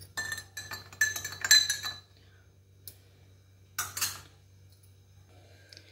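Metal spoon stirring a drink in a faceted drinking glass, clinking rapidly against the glass with a bright ringing for about two seconds. A single click follows, then a short noisy burst about four seconds in.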